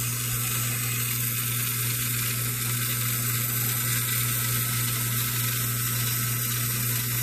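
REMCO Mighty Mike toy jeep's battery-powered motor and gears running steadily, switched on and driving.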